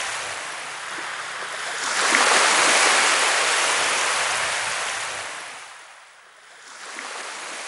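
Waves washing in, a rushing water sound that swells about two seconds in, fades away near six seconds, then comes back more quietly.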